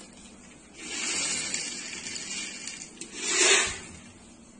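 Dried peas poured from a plastic jar into a small ceramic cup: a hissing rush of small hard peas that starts about a second in, with a louder, brief surge a little past three seconds.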